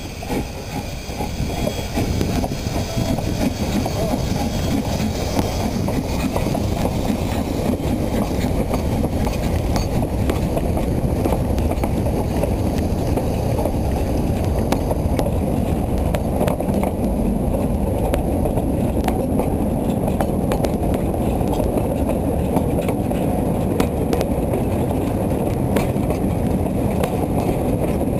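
A narrow-gauge steam train passing at close range over a level crossing: the steam locomotive first, with some hiss in the first few seconds, then its coaches and wagons rolling by with a steady rumble and clatter of wheels on the rails.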